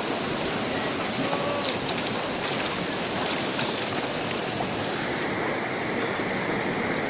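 Muddy floodwater rushing and churning in a steady, loud rush.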